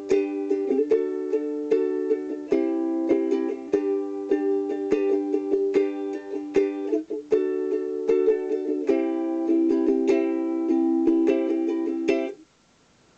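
Ukulele strummed in a steady rhythm, the chord changing about two and a half seconds in and again about nine seconds in. The strumming stops suddenly about a second before the end.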